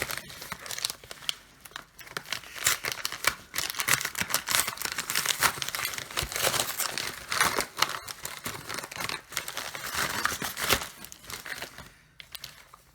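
Packaging crinkling and tearing as a parcel of parts is unwrapped by hand: an irregular run of crackles and rustles that eases off near the end.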